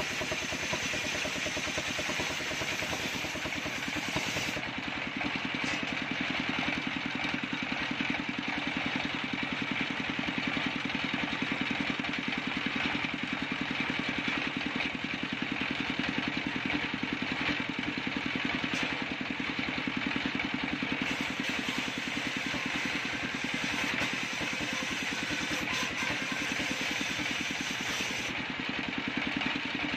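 Engine-driven table circular saw running steadily at speed, cutting coconut-trunk wood into beams. A higher hiss of the blade in the wood comes in the first few seconds and again for several seconds past the two-thirds mark, over the constant engine drone.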